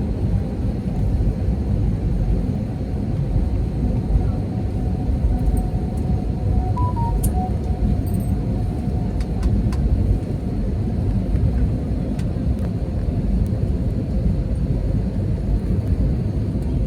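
Steady low rumble of an airliner cabin during landing, engine and airflow noise with a faint steady tone that fades about halfway through.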